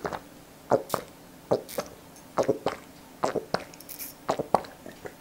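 A person drinking water in a quick series of gulps and swallows, roughly two a second and often in pairs.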